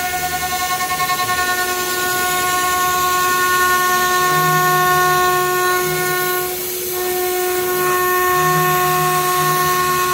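Spindle of a 5-axis CNC router cutting wood: a steady high whine with several pitched overtones. The whine briefly weakens about two-thirds of the way through, then resumes.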